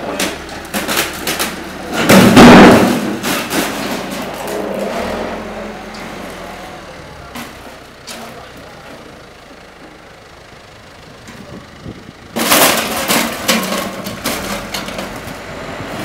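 Backhoe loader's engine running while its front bucket rips a tiled pillar and metal frame away. There is a loud crash and scraping about two seconds in, and a burst of clattering and cracking from about twelve seconds on.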